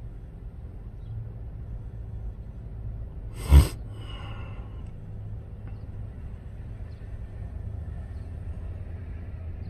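Steady low rumble of vehicles moving through a parking lot. About three and a half seconds in comes one short, loud burst of noise with a brief fading ring after it.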